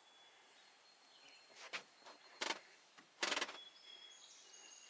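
Quiet outdoor ambience with faint, high, steady whistled bird notes, mostly in the second half. Three short scuffing noises come about a second apart.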